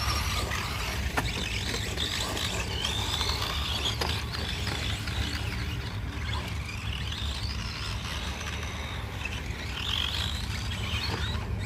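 Electric motor of a radio-controlled car whining, rising and falling in pitch several times as it speeds up and slows, over a steady low rumble.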